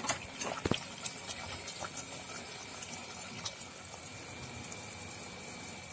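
Thick paneer butter masala gravy simmering in a kadai, its bubbles popping in small irregular plops. There is one louder knock a little under a second in.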